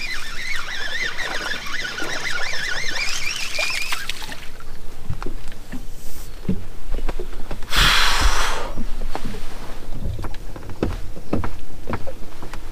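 A small bass being reeled in and lifted aboard, with scattered light clicks and knocks from rod and reel handling and a brief hiss of noise about eight seconds in. High wavering chirps fill the first four seconds.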